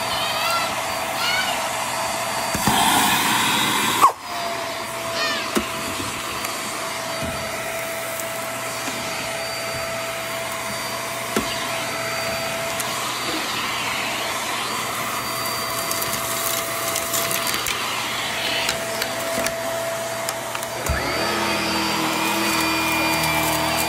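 Hart stick vacuum running steadily with a constant motor whine while its bare wand sucks white powder out of carpet. There is a sharp click about four seconds in. Near the end the sound changes to a lower, fuller hum as the powered floor head with its brush roll goes onto the carpet.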